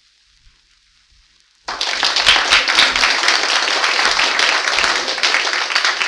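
Faint record surface hiss, then about a second and a half in an audience breaks into loud, sustained applause.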